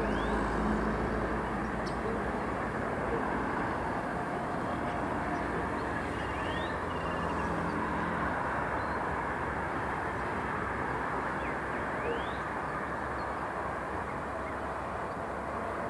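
City ambience: a steady wash of distant traffic noise, with a short rising bird chirp heard three times, near the start, about six seconds in and about twelve seconds in.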